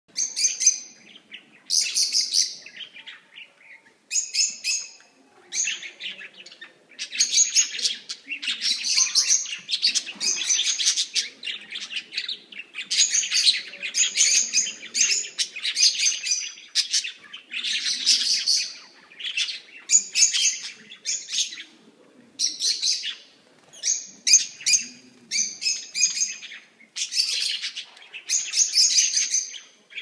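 A group of budgerigars chirping and chattering in short, high-pitched bouts, one after another with brief pauses.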